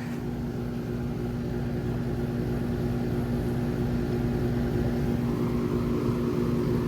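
Rusty Trane XR14 central air conditioner outdoor unit running steadily: its scroll compressor gives a constant hum and its fan a steady rushing.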